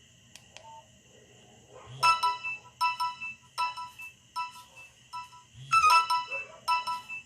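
Nokia 6085 mobile phone playing a ringtone through its loudspeaker: after a couple of faint clicks, a melody of short, bright repeated notes starts about two seconds in, several notes a second, and the phrase starts over about six seconds in.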